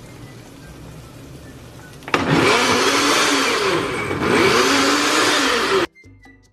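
A Hamilton Beach countertop blender switches on about two seconds in and blends a berry protein shake for about four seconds, its motor pitch rising and falling as the load shifts. It then cuts off suddenly.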